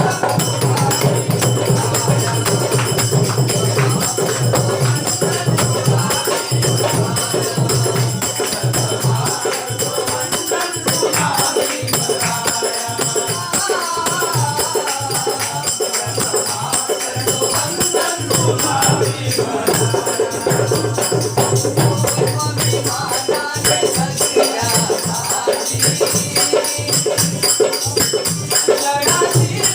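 Folk singers performing a devotional salutation song (vandan geet), with a jingling percussion beat keeping a steady rhythm under the voices.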